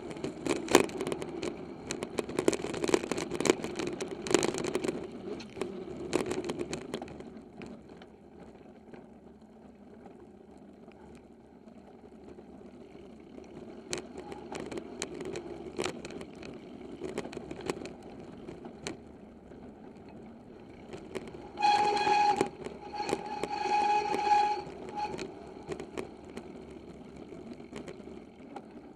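Giant XTC 2 hardtail mountain bike rattling and clattering over a rough singletrack trail, with tyre noise and sharp knocks picked up through the handlebar, busiest at the start and quieter for a stretch in the middle. Near the end a brief high squeal sounds twice, the second time for about two seconds.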